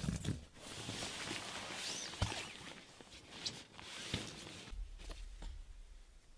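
Footsteps with scattered rustles and knocks, two sharper knocks about two and four seconds in.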